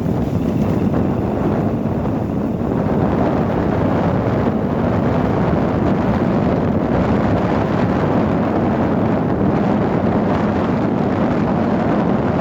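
Steady wind buffeting the microphone over a low rumble, the sound of riding in an open safari vehicle.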